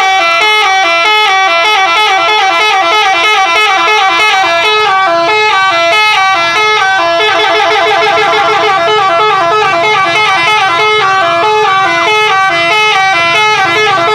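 Bus 'telolet' horn, a set of multi-tone musical air horns, played long as a rapid, continuous run of changing notes like a jingle.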